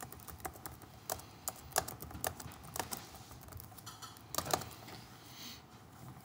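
Typing on a computer keyboard: a run of irregular keystroke clicks that stops shortly before the end.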